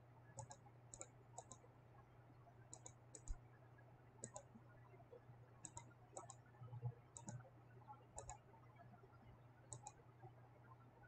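Faint computer mouse clicks, mostly in quick press-and-release pairs, coming irregularly about once a second over a low steady hum.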